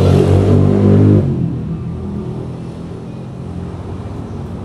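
A motor vehicle's engine running nearby, loud for about the first second, then dropping and fading away steadily.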